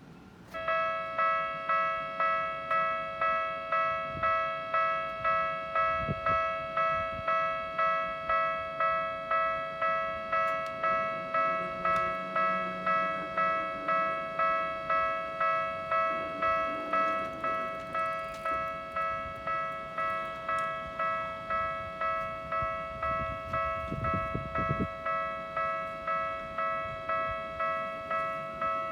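Japanese railway level-crossing alarm, an electronic bell that starts about half a second in and strikes steadily, about one and a half strikes a second.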